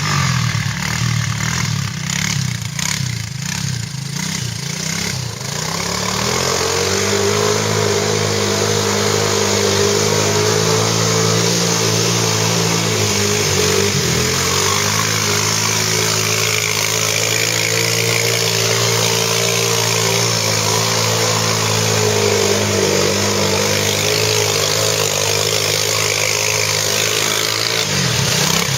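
Quad (ATV) engine running, mostly at steady revs, with a brief drop in revs about halfway through and another near the end. The first few seconds are rougher and choppier.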